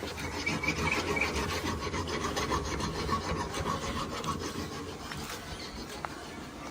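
Rapid, rasping strokes of a toothed tool working wood, growing fainter over the last couple of seconds.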